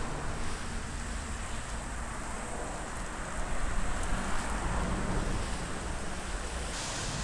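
Steady rushing hiss of a sudden heavy downpour, with a low rumble underneath; the hiss grows brighter near the end.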